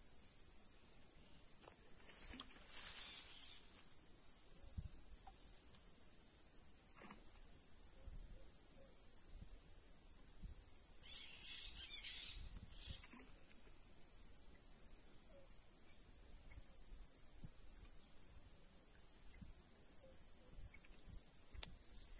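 A steady, high-pitched insect chorus of two unbroken trills at slightly different pitches, with faint rustling about three seconds in and again around twelve seconds in.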